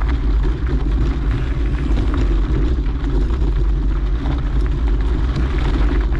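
Steady low wind rumble on the microphone as a mountain bike rolls along a trail, with scattered faint ticks.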